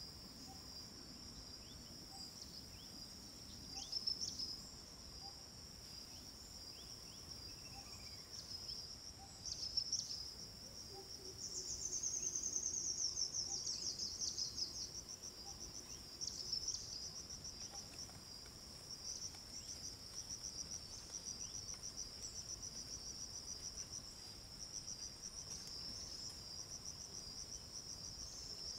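A steady, high-pitched chorus of singing insects. A louder pulsing trill joins about twelve seconds in, and a quick rhythmic pulsing runs through the last part, with a couple of short louder bursts in the first half.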